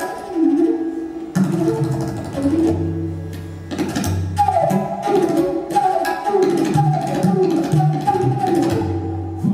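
Live Hindustani classical music: a bansuri (bamboo flute) plays a melodic line with slides between notes, over tabla accompaniment. Crisp strokes on the right-hand drum mix with deep bass strokes on the bayan, heard in several places.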